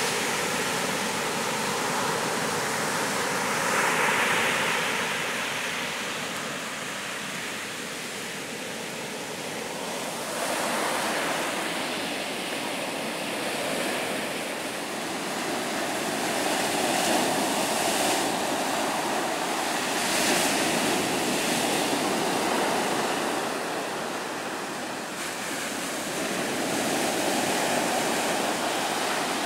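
Atlantic Ocean surf breaking on a sand beach: a continuous wash of water that swells each time a wave breaks and runs up the sand, then eases, every several seconds.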